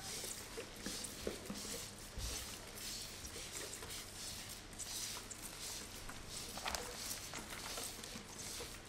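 Hand-held spray bottles misting blue colouring onto a large sheet of paper: overlapping short hissing sprays, roughly one or two a second, irregular as several sprayers work at once.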